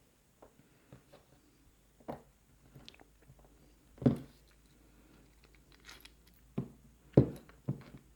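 Irregular metallic clicks and knocks of a laminated steel padlock's parts and small tools being handled while it is taken apart, with the loudest knock about four seconds in and a few more near the end.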